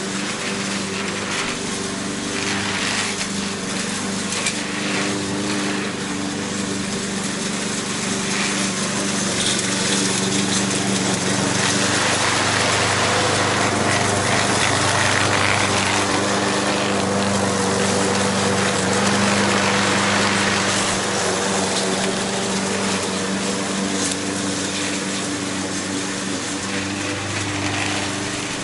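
Gas walk-behind push mower running and cutting grass, with a steady engine note. It grows louder as the mower passes close in the middle and fades as it moves off.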